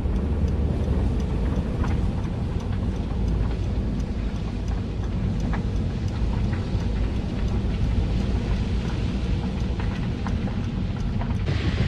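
A motor vehicle running: a loud, steady low rumble with scattered faint sharp crackles.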